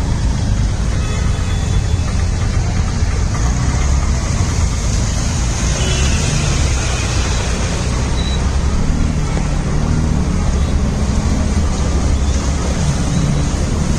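Motor traffic driving through a waterlogged road: continuous engine rumble under a steady wash of noise, with a deeper steady engine tone coming in about nine seconds in.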